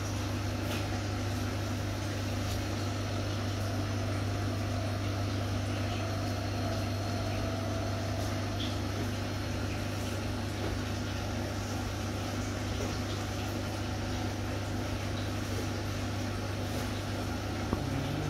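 Steady low machine hum with a strong constant drone.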